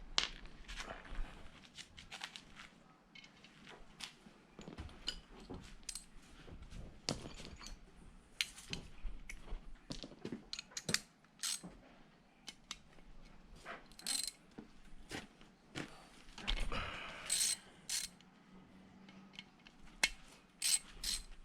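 Hand-ratchet wrench clicking in short, irregular runs, with scattered metal clinks of tools and parts, as bolts are worked on a Nissan VQ37VHR engine block. The clicks come quicker near the end.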